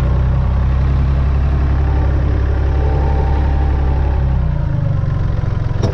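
Massey Ferguson 135 tractor's three-cylinder diesel engine running steadily under way in high gear. About three-quarters of the way through its note changes and eases slightly.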